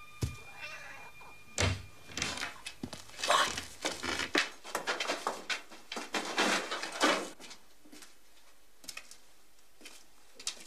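A single thud, then about five seconds of irregular scraping and knocking noises, which die away to a few faint clicks.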